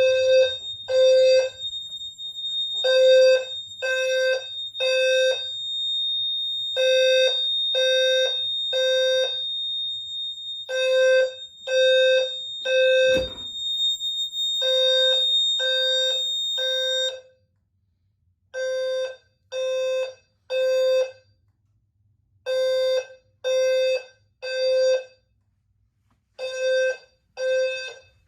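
Low-frequency fire alarm sounder horns sounding the temporal-three evacuation pattern: three short low buzzing pulses, then a pause, repeating about every four seconds after a pull station was activated. A steady high-pitched electronic tone sounds alongside until about two-thirds of the way through and then stops, and a single click comes shortly before that.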